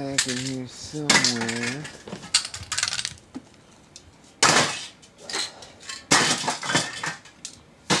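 Spray paint cans: the mixing ball rattling and clinking as a can is shaken, and short bursts of spray hiss.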